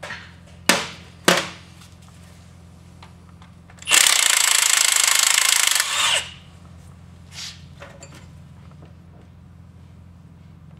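Cordless impact wrench hammering for about two seconds, working a bolt loose on the Dana 30 axle's brake backing plate. Before it come two sharp knocks.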